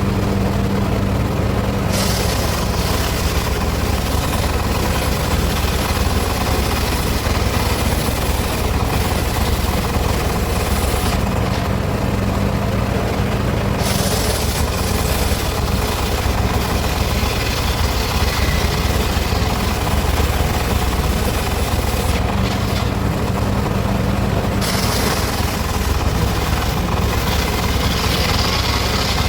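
Circular saw cutting teak wood, its steady machine hum running throughout. Three long cuts stand out, where the blade's high hiss through the wood rises over the hum: about two to eleven seconds in, fourteen to twenty-two, and from about twenty-five seconds on.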